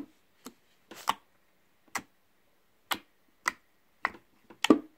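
Fingers poking and pressing glossy borax-activated glue slime in a plastic tub, making short sharp sticky clicks about twice a second, the loudest at the start and near the end.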